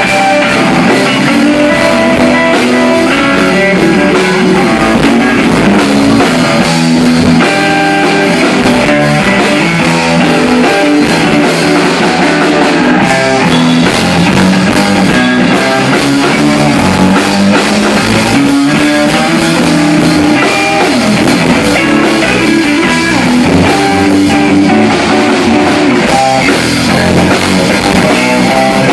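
Live rock band playing loud and without a break: electric guitar playing moving note lines over bass guitar and drum kit, with no singing.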